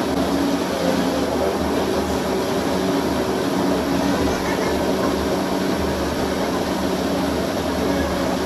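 Countertop blender running steadily, blending a fruit-and-vegetable smoothie with almond milk.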